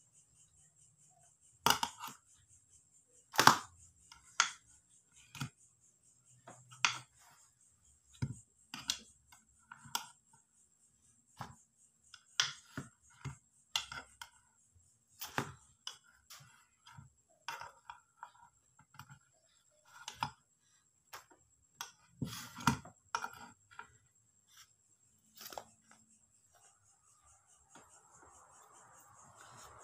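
Metal spoon clinking and scraping against a non-stick multi-hole baking pan as baked cakes are pried out one at a time: irregular sharp clinks with short pauses between.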